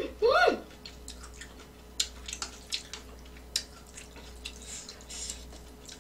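A few short sung notes at the very start, then metal chopsticks and a spoon clicking and scraping against a stainless steel pan as noodles are stirred, in scattered irregular clicks.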